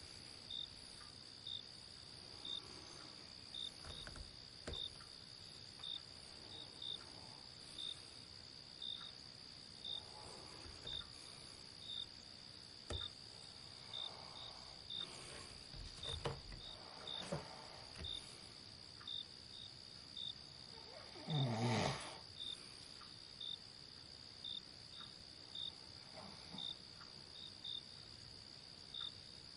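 Night insects keep up a steady high trill with short chirps about one or two a second, while a sleeping person breathes faintly and gives one loud snore about 21 seconds in.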